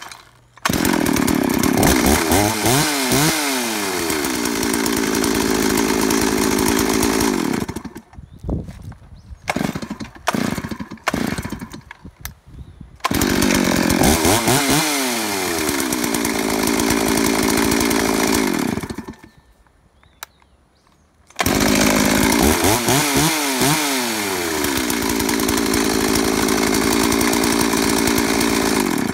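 Stihl MS381 two-stroke chainsaw, warm, starting on a single pull, revving up and down a few times, then running steadily before being shut off. This happens three times, with a few short bursts of engine noise between the first and second runs.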